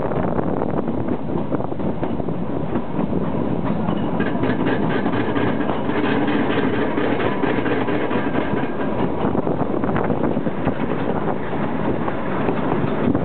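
Kalka–Shimla narrow-gauge train running, heard from on board: a steady rumble of wheels on the rails, with a run of quick rail clicks in the middle.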